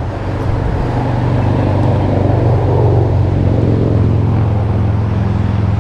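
Boat motor running steadily at low speed, a continuous low hum that strengthens a little partway through.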